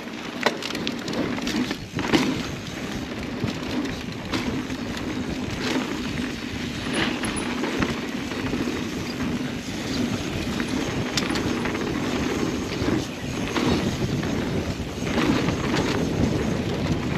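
Mountain bike riding down a dirt singletrack: steady rumble of tyres and wind, with scattered clicks and rattles from the bike over bumps.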